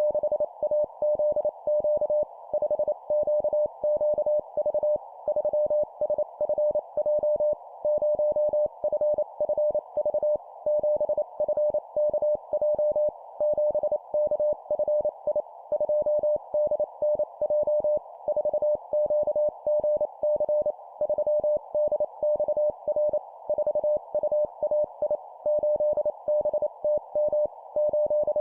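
Morse code (CW) sent at 25 words per minute as a single steady beep keyed rapidly on and off. It comes in four-character groups, a number followed by three letters, with short gaps between groups.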